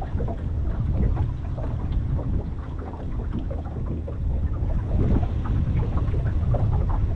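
Wind buffeting the microphone as a low, uneven rumble, with water splashing and slapping against the hull of a boat moving slowly forward.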